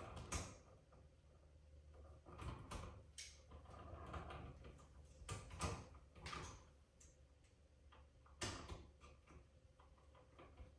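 Faint, scattered clicks, taps and rustles of hands handling switch wiring and a light switch at a wall box, with about half a dozen sharper knocks spread through.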